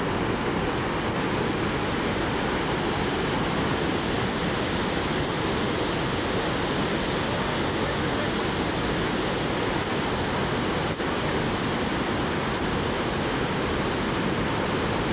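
Steady rush of high floodwater churning through whitewater, a constant even roar with no letup.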